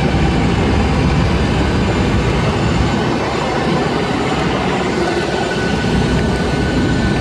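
Loud, steady aircraft noise on an airport apron: a low rumble with a hiss over it, and a faint high whine that joins about five seconds in.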